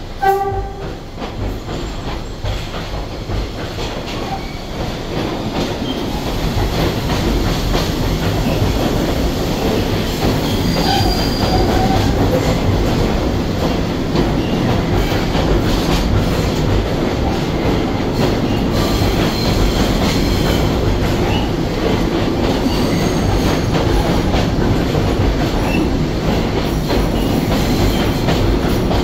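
R62A subway train pulling out of the station and picking up speed, growing louder over the first ten seconds or so, then a steady rumble with clicks over the rail joints and brief high wheel squeals. A short tone sounds just after the start.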